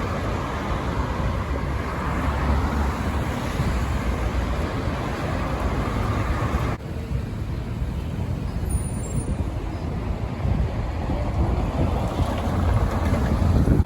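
City street traffic noise, a steady rumble of passing cars and buses, with an abrupt cut about halfway through to a slightly quieter stretch.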